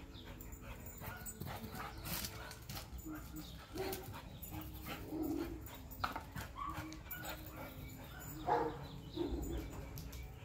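A husky gives a handful of faint, short whines while running laps.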